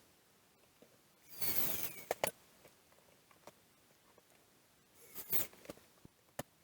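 Handling noises from reassembling a small plastic device: two short scraping, rustling bursts, the first with a thin falling squeak, and a few sharp plastic clicks.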